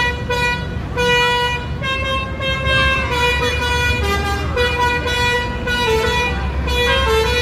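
Basuri 'telolet' multi-tone bus horn playing a tune of held notes that step up and down in pitch every half second or so, over the low rumble of the bus engine.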